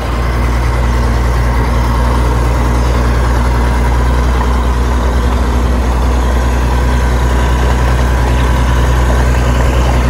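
Heavy engine idling: a loud, steady, unchanging low drone.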